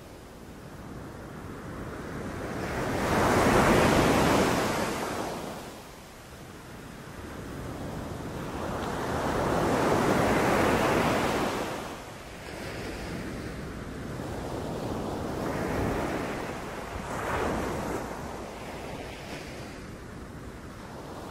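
Sea waves breaking and washing up on a beach, the surf swelling and falling back every few seconds. There are two big surges, about four and ten seconds in, then several smaller ones.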